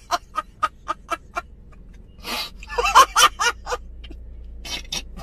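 A man laughing hard in a rapid run of 'ha-ha-ha' pulses, about four a second, that fade out about a second and a half in. A second, shorter burst of laughter comes around three seconds in.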